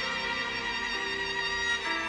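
Instrumental background music: a slow melody led by violin, with long held notes.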